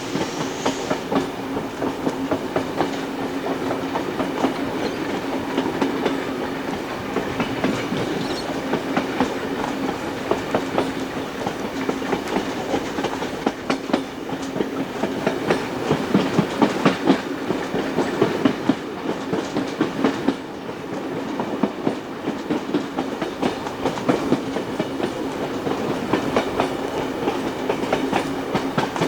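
Passenger train hauled by steam locomotive 3801 running along the track, heard from the carriages: wheels clicking rhythmically over the rail joints over a steady drone, with a louder run of clicks about two-thirds of the way through.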